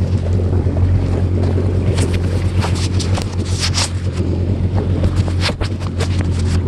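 Jet ski engine running with a steady low hum, while wind rushes and buffets over the phone's microphone, most strongly a few seconds in.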